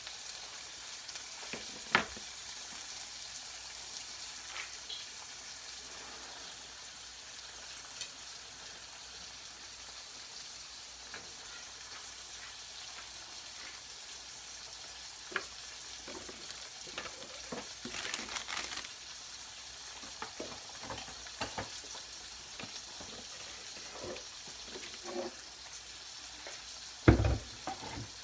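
Pork chops sizzling steadily in oil in a frying pan, with vegetables sautéing in a second pan, as the chops sear on their first side. A few scattered clicks and knocks come over it, the loudest near the end.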